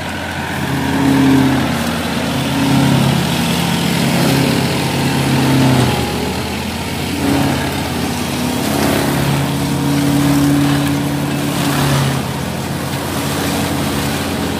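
Massey Ferguson 9500 Smart tractor's diesel engine running under load as it drives a Lemken Spinel flail mulcher through a heap of dry crop leaves. The engine note holds steady while the loudness swells and eases.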